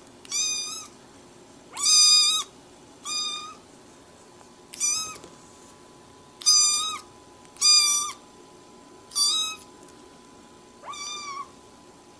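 Young kittens mewing: eight short, high-pitched cries, each held at a steady pitch, about every second and a half.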